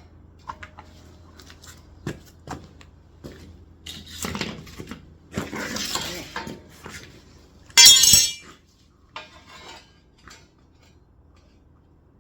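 Metal pieces and tools being handled: scattered clinks and knocks, a longer handling noise in the middle, and a loud ringing metallic clatter about eight seconds in.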